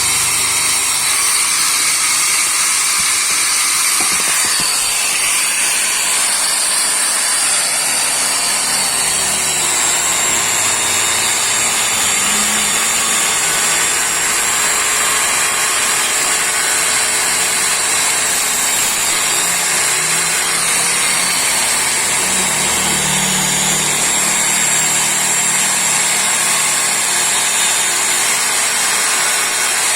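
Angle grinder with a wire brush running continuously against a motorcycle's aluminium engine case, scrubbing off paint; a steady high whine that sags a little in pitch for stretches as the brush works the metal.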